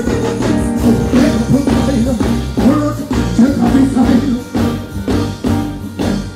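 Live dancehall performance over a stage sound system: a man's voice sings into a microphone over a backing track with a steady beat, about two strikes a second, and deep bass.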